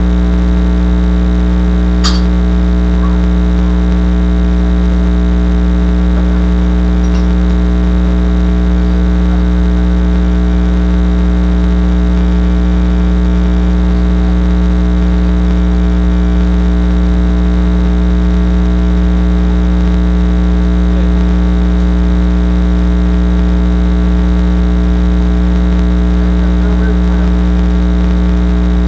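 Loud steady electrical mains hum, with one sharp knock about two seconds in.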